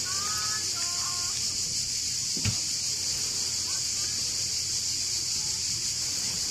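Steady high-pitched buzzing of a cicada chorus in the pine trees. Faint voices are heard in the first second or so, and a single knock comes about two and a half seconds in.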